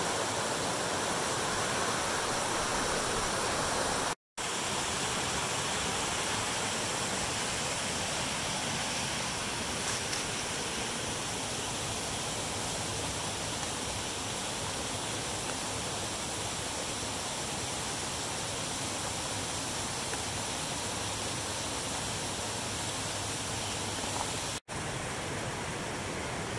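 A creek rushing steadily over small rocky cascades, a continuous even wash of water noise that cuts out briefly twice.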